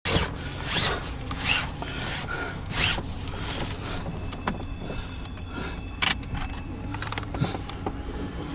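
Rustling and scraping from a phone or camera being handled inside a car, in several brief swooshes with scattered clicks, over a steady low rumble.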